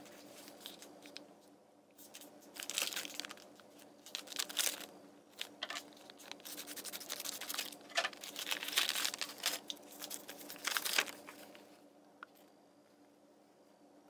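Plastic LEGO Minifigures blind bag being handled, crinkling and crackling in repeated bursts as it is torn open, from about two seconds in until about eleven seconds, then only light rustling.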